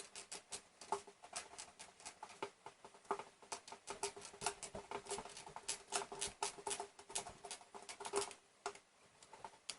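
Small screwdriver turning a little screw in a graphics-card heatsink spacer clip, tightening it: a run of rapid, irregular light clicks and ticks from the tip working in the screw head.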